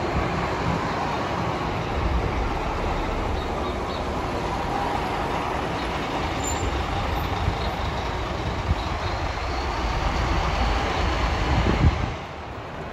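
City bus engine running as the bus pulls away from the stop and drives off, getting a little louder before cutting off suddenly near the end.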